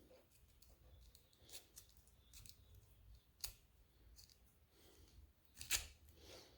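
Faint clicks and taps of small metal parts and a hand tool being handled, with two sharper clicks, one about three and a half seconds in and one near the end.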